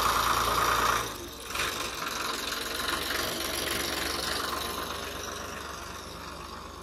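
Diesel tractor engine running, loud at first, dropping sharply about a second in, then running steadily and slowly fading as the tractor moves off.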